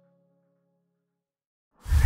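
The last held chord of soft background music fades out, then near silence. Near the end a sudden loud sound effect starts, a noisy rush with a deep low boom, as the logo sting begins.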